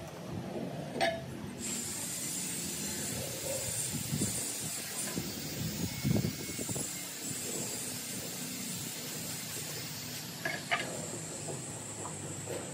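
Ceramic parking tiles being set by hand into wet cement mortar: a sharp click about a second in and a few more near the end as tile edges touch, with soft low knocks in the middle, over a steady high hiss.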